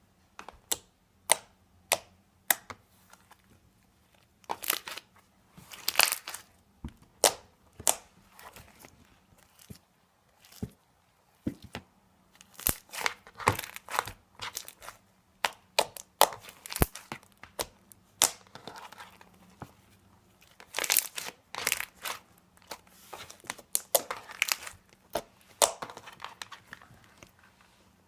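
Sky-blue slime being squished and poked by hand: a run of sharp pops and crackles, some single and some in dense clusters, with short pauses between them.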